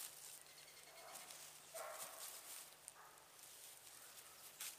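Faint goat bleats, the clearest a short one about two seconds in, with weaker ones before and after, over light rustling of hooves in dry leaves and grass.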